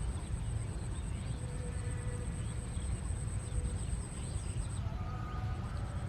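Outdoor field ambience: a steady low rumbling noise with a thin high-pitched whine that stops about five seconds in, and faint scattered chirps.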